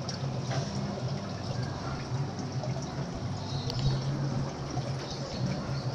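Aquarium filter running: water trickling and splashing into the tank over a steady low hum.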